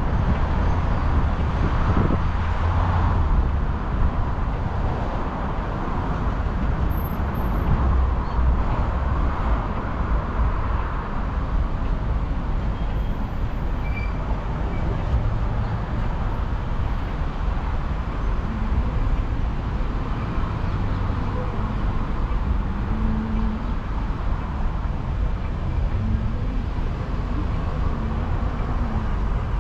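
Steady city road traffic: cars driving through a multi-lane junction, a continuous rumble of engines and tyres that swells as a few vehicles pass close by.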